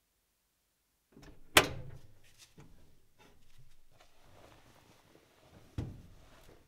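A sharp knock about one and a half seconds in, followed by light scuffs and small knocks of someone moving about, and a duller thump near the end.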